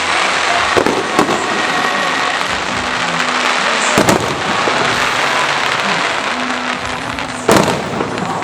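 Aerial fireworks display: continuous crackling and fizzing of bursting shells, with sharp bangs about a second in, at about four seconds, and the loudest near the end.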